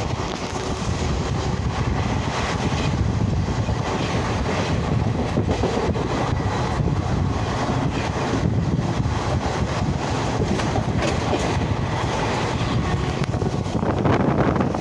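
Passenger express train running at speed, heard from inside a coach at an open window: a steady rolling rumble of steel wheels on rail with faint clicking mixed in.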